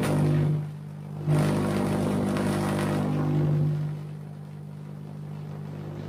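GU39B vacuum tube Tesla coil running, its spark streamers giving off a loud, deep buzz. The buzz dips briefly after about half a second, comes back at full strength, then drops to a quieter buzz about four seconds in as the streamers shrink.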